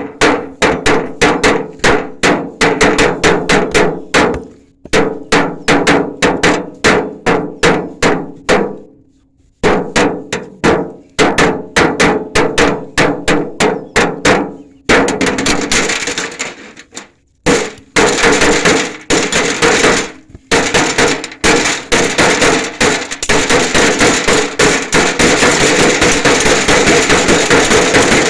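Hammer strikes driving nails, steady at about three blows a second with a few brief pauses. About halfway through they speed up into a rapid, almost continuous run of blows.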